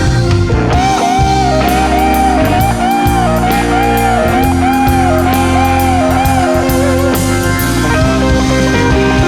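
Blues-rock band playing an instrumental section: a lead guitar repeats a bent-note phrase, the pitch rising and falling in arches over and over, over drums and bass.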